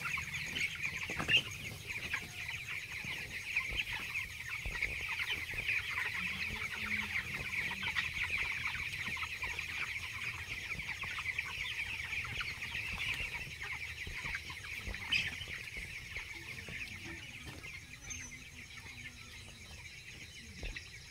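A large flock of sixteen-day-old broiler chicks peeping continuously, a dense chatter of many short high calls that grows somewhat quieter near the end.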